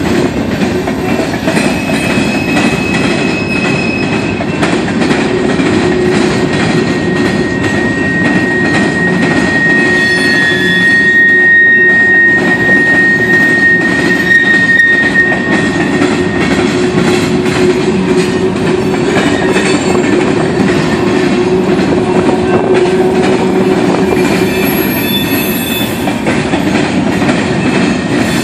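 Herzog ballast hopper cars rolling past on the rails: a steady, loud rumble of wheels on track. A thin high wheel squeal rises out of it from about eight seconds in and fades by about sixteen seconds.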